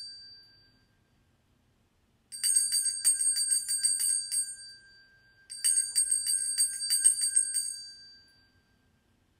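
Handbell shaken rapidly in two rounds of high, fast ringing, each about three seconds long, after the ringing of an earlier shake fades out in the first second.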